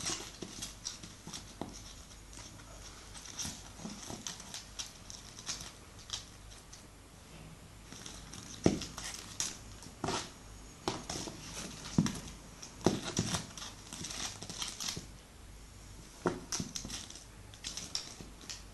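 A kitten batting and tussling with a shiny golden toy ball on a hard tiled floor, making irregular light clicks and taps with a few louder knocks near the middle.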